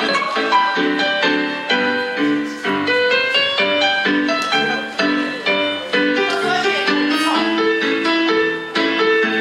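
Instrumental music: a piano playing a quick, busy run of notes over chords.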